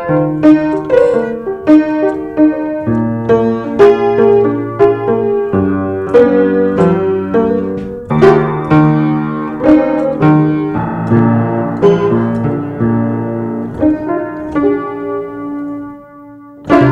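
Piano music: a melody of struck, ringing notes over held bass notes, dropping away briefly near the end before the playing resumes.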